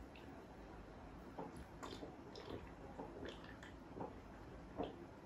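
Gulps and sips of fizzy cola drunk from a glass: a run of soft, wet swallowing sounds, about seven in all, spaced roughly half a second apart.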